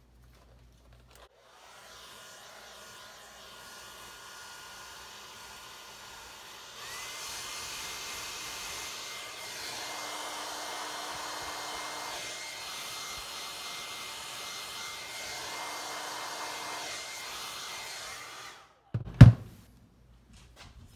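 Hair dryer blowing hot air onto nylon fuel line to make it pliable, a steady airy hiss with a faint whine. It comes on softly a moment in, gets louder about a third of the way through, and switches off near the end, followed by a sharp knock.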